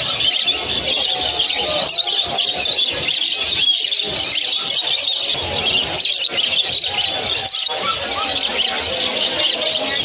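Many caged finches and lovebirds chirping and squeaking at once: a dense, unbroken high twittering.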